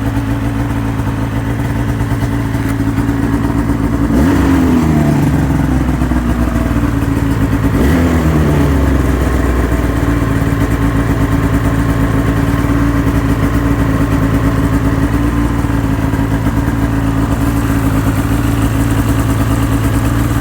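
Ski-Doo MX-Z Renegade 600 H.O. SDI snowmobile's two-stroke twin engine idling steadily at about 1700 rpm, having dropped from its warm-up fast idle. The throttle is blipped briefly twice, about four and eight seconds in, the pitch rising and falling back each time.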